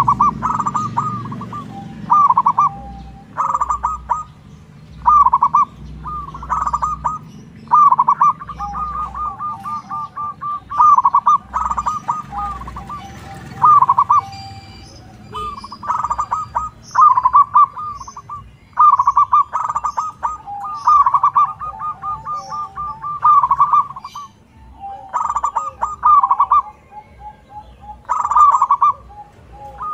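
Zebra dove (perkutut) cooing over and over: rapid, rhythmic stuttering coo phrases about a second long, one after another with short pauses between.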